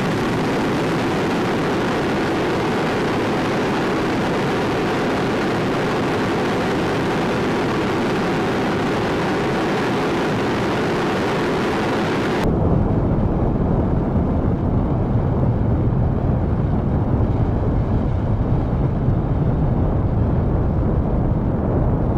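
Space Launch System five-segment solid rocket booster firing in a static test, a loud, steady rushing roar of rocket exhaust. About twelve seconds in the sound turns deeper and duller, the high hiss dropping away under a heavier low rumble.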